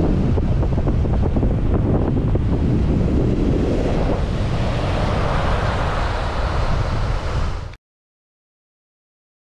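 Wind buffeting the microphone over the wash of rough surf breaking on a sandy beach. It cuts off abruptly to silence for the last second and a half.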